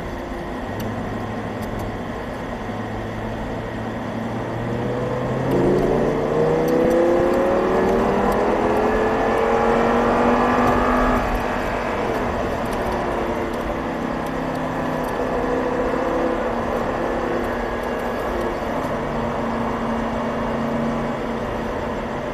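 Audi R8's 5.2-litre V10 heard from inside the cabin while lapping a track. The engine note holds low at first, rises steadily under acceleration from about five seconds in, falls away about halfway through, and then runs on at a lower, steadier pitch.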